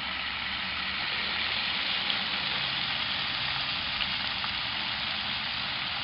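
Battered fish frying in a deep fryer: hot oil sizzling in a steady, even hiss, with a faint low hum underneath.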